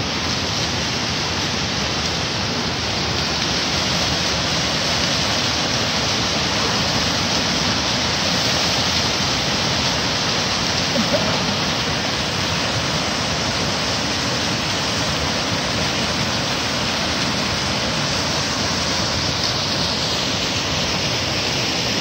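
Mountain waterfall cascading over rocks: a steady rush of water.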